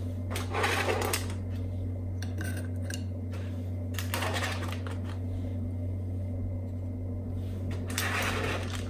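Aluminium foil crinkling as plastic popsicle sticks are pushed through the foil covering glass tumblers, in three short rustles: about half a second in, around four seconds in, and near the end. A steady low hum runs underneath.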